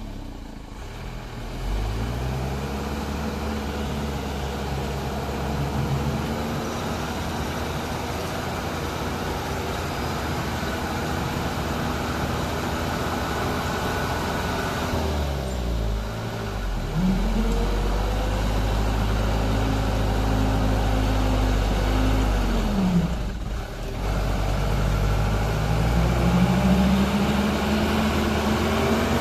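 Mitsubishi Fuso truck's diesel engine revving under heavy load as the truck crawls through deep mud. It is held at high revs, drops off briefly twice (about halfway and again a few seconds later), then climbs back up.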